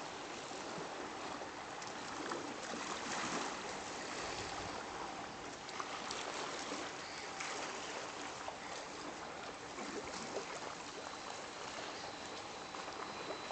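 Small waves lapping against the lakeshore, a steady wash of water noise flecked with little splashes.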